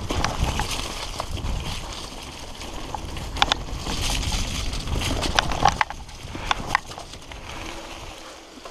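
Rigid singlespeed mountain bike rolling down a dirt trail: steady tyre and wind rumble, with sharp rattles and clicks from the bike jolting over bumps, several close together a little past the middle. It gets quieter near the end.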